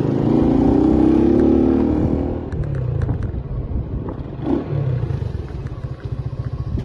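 A vehicle engine running close up, with a rapid, even firing pulse. Its pitch rises for the first two seconds, then it settles back to a steadier run.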